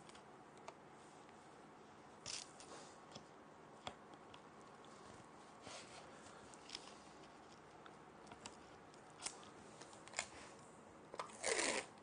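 Faint handling noises of the glued wooden box and its masking tape: scattered light clicks and a few short scratchy rustles, with a longer scratchy rustle near the end.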